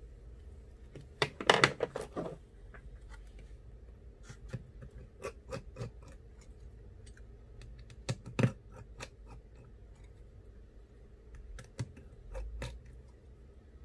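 Small clicks, taps and scrapes of a precision screwdriver and small metal phone parts being handled on an opened iPhone 8 display assembly. There is a louder clatter about a second and a half in and a couple of sharper knocks around eight seconds.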